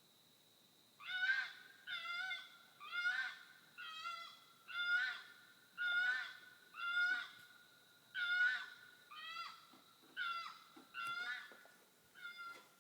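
An unidentified wild animal calling from the woods at night: a series of about a dozen short, loud, awful-sounding calls with a clear pitch, roughly one a second, beginning about a second in.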